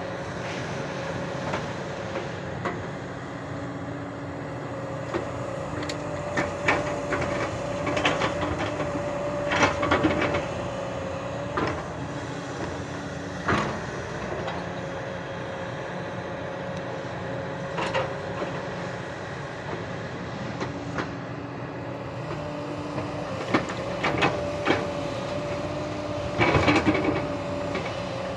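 Hyundai hydraulic excavator working: its diesel engine runs steadily under a held whine, while the bucket clanks and knocks every few seconds as it digs into the soil bank and swings, with the loudest rattle of clanks near the end.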